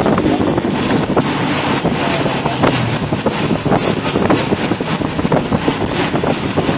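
Cabin noise inside a moving bus: a steady rush of engine, tyre and wind noise with frequent small rattles.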